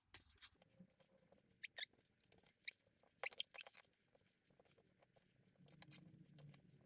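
Faint, sparse clicks and wet scraping of a spoon scooping thick beef stew from a plastic tub into pastry-lined pie dishes, with a quick cluster of clicks about three seconds in.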